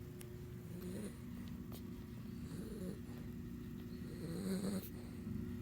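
A dog snoring in its sleep: a low, rough snore with each breath, about every two seconds.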